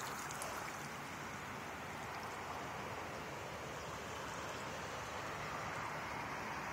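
Swollen, fast-flowing river after rain, rushing steadily past the bank in an even wash of moving water.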